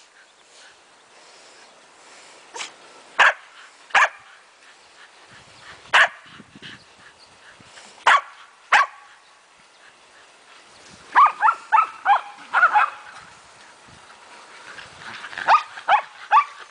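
Shetland Sheepdogs barking excitedly in play, eager for the ball: short, sharp barks, single ones every second or two at first, then quick runs of barks about eleven seconds in and again near the end.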